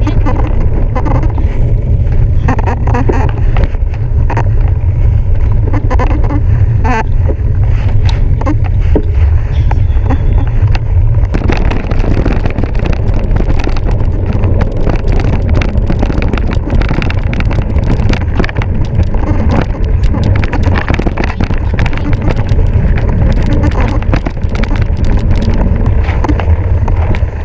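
Mountain bike rattling and clattering over rough trail under a heavy low rumble of wind on the rider's camera microphone; the clatter becomes much denser about eleven seconds in.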